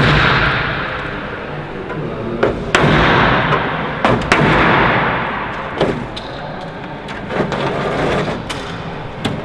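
A hammer drives a chisel against a riveted metal fuselage panel of an Avro Lancaster bomber, cutting the panel free. There are several sharp blows, and the heaviest ring on for a second or more in the hangar, followed by lighter knocks.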